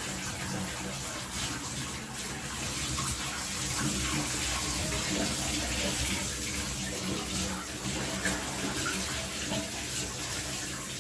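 Running water rushing into a bathtub as a dog is being washed under it: a steady pouring and splashing, slightly louder for a few seconds in the middle.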